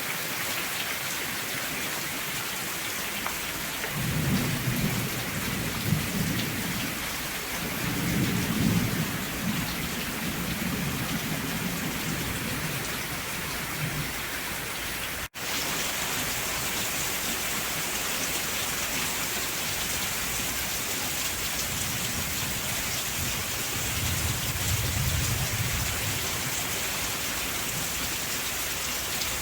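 Steady heavy rain with low rolls of thunder: one a few seconds in, another around eight seconds, and a third near the end. The sound drops out for an instant about halfway.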